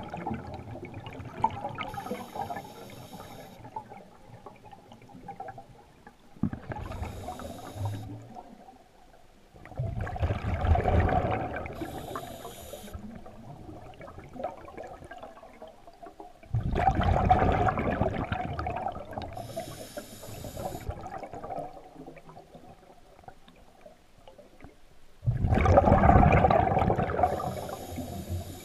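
A scuba diver breathing through a regulator underwater. Loud gurgling bursts of exhaled bubbles come about every six to nine seconds, four of them, each with a short, high hiss of air through the regulator.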